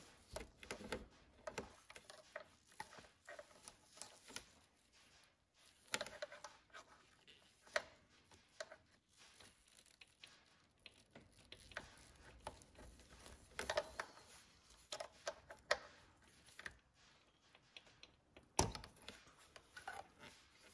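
Faint, scattered clicks and taps of needle-nose pliers gripping and pulling a small plastic cap out of a VANOS unit, with a few sharper clicks.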